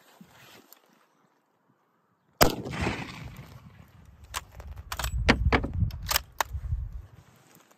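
One shot from an Eddystone Model 1917 bolt-action rifle in .30-06, about two and a half seconds in, with a short echo. About two seconds later comes a run of sharp metallic clicks as the bolt is worked, over a low rumble on the microphone.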